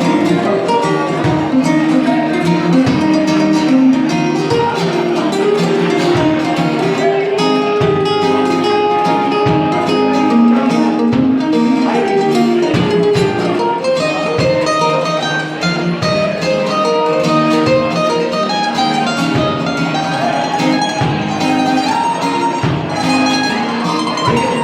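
Live band playing an instrumental break: a guitar solo over the backing with a steady beat.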